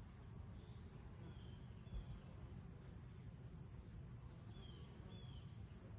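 Faint outdoor summer ambience: a steady high-pitched chorus of crickets over a low rumble, with a few short faint chirps and one soft knock about two seconds in.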